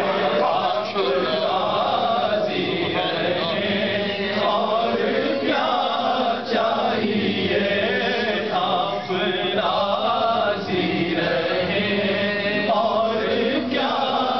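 A male voice reciting an Urdu naat in a long, wavering chant without breaks, over a steady low drone.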